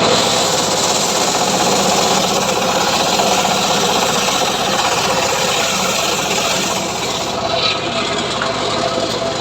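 Homemade srekel sawmill running with a steady, loud mechanical din of engine and saw; the high hiss eases a little about seven seconds in.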